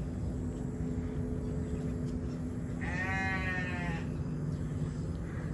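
A goat bleating once about three seconds in, a wavering call lasting about a second, over a steady low hum.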